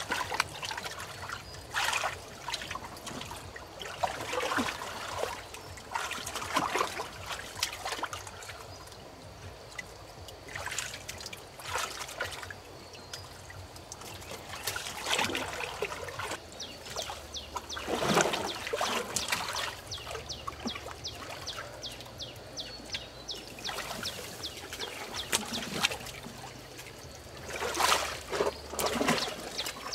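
Shallow water splashing and trickling in irregular bursts every second or few, with a faint steady low hum underneath.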